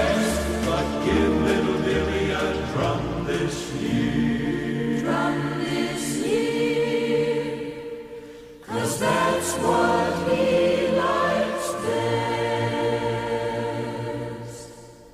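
Choral music: a choir singing held chords. The music drops away briefly about halfway, comes back, then fades out near the end.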